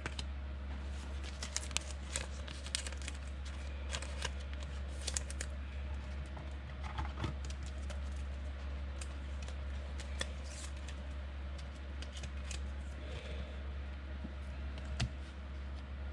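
Trading-card pack and cards being handled: the wrapper opened and the cards shuffled, giving scattered clicks and crinkles over a steady low electrical hum.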